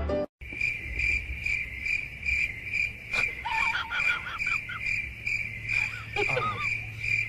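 Cricket chirping steadily, about two chirps a second, over a low hum. Short wavering high-pitched calls break in about three seconds in and again around six seconds.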